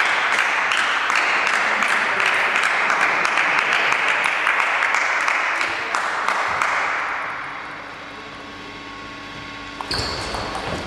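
Spectators clapping, fading out about seven seconds in. Near the end come a few sharp knocks of a table tennis ball on bat and table as a rally starts.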